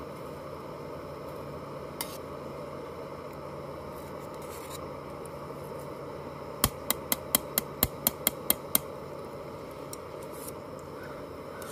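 Backpacking canister gas stove burning steadily under a titanium pot, with a metal spoon stirring in the pot. A little past halfway, the spoon is tapped sharply on the pot about nine times in quick succession, roughly four taps a second.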